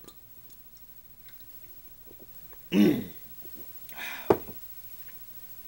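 A man clears his throat loudly just after a swig from a bottle, about three seconds in, then makes a second, breathier throat sound a second later with a sharp click in the middle of it.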